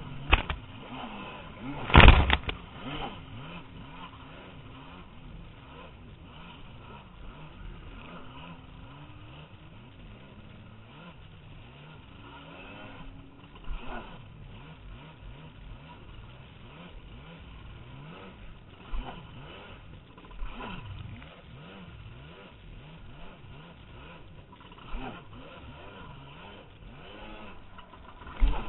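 Jet ski engine revving up and down while riding through surf, over a steady rush of water spray and wind. There is a loud thump of the hull hitting a wave about two seconds in, with several smaller ones later.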